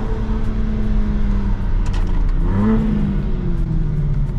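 BMW G82 M4's S58 twin-turbo inline-six running through a full stainless Valvetronic exhaust, holding steady revs and then rising and falling again briefly about two and a half seconds in.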